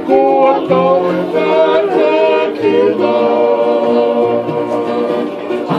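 A group of men singing together in harmony, holding long sustained notes, with acoustic guitars and a ukulele strummed along under the voices.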